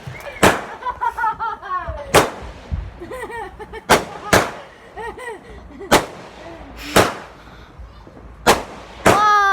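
Fireworks exploding: a string of about eight loud, sharp bangs, irregularly spaced, some close together and some more than a second apart.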